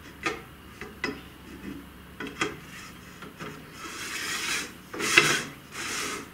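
Aluminium stiffener insert being slid and pushed into an aluminium C-rail extrusion: a few light metal clicks, then longer scraping rubs of metal on metal, the loudest about five seconds in. The insert is being refitted so that its freshly sanded end sits flush with the rail.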